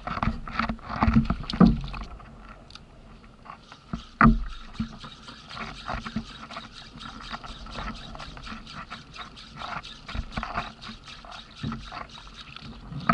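Spinning reel cranked fast while jigging from a kayak, with a quick, even clicking from about five seconds in, over water lapping against the hull. A single knock about four seconds in.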